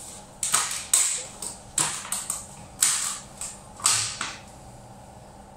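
Dishes and kitchenware clattering as they are handled at a dish rack: a run of sharp clinks and knocks, about ten in the first four seconds.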